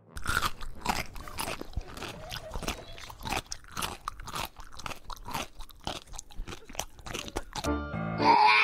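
A pet chewing something crunchy: irregular sharp crunches, about two or three a second. Near the end a short pitched sound cuts in.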